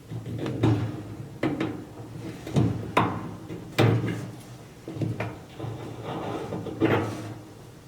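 Irregular clunks and clicks of metal parts being handled as a drum support wheel is worked off its shaft on a Duet Sport clothes dryer, about seven sharper knocks among quieter rattling.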